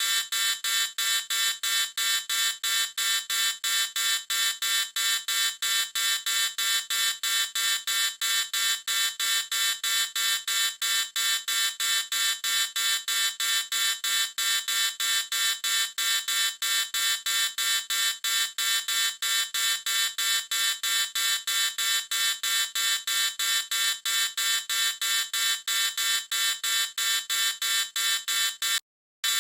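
High-pitched electronic alarm beeping in rapid, even pulses, about three a second, with a brief break near the end.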